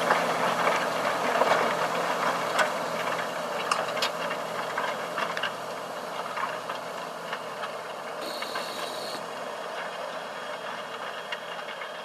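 John Deere 8335R tractor's six-cylinder diesel pulling a nine-furrow plough: steady engine noise mixed with rattles and occasional sharp clicks from the working machinery, slowly fading.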